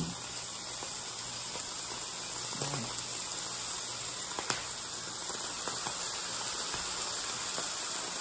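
Bacon and a sausage patty sizzling in a hot skillet: a steady hiss of rendering fat with a few sharp pops and crackles.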